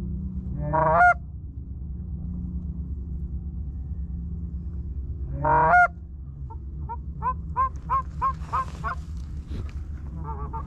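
Canada goose honks: two loud, drawn-out honks that break upward, about a second in and again about five and a half seconds in, then a run of quicker, softer honks and clucks, two or three a second, from about six and a half seconds on. A steady low rumble lies underneath.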